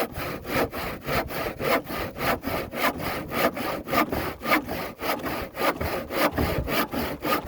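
Handsaw cutting through an old wooden board, in quick, steady back-and-forth strokes, about four to five a second.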